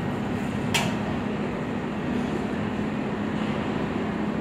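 NYC Subway work train led by an R32 car creeping slowly into the station: a steady low hum and rumble, with one brief, sharp high-pitched sound about a second in.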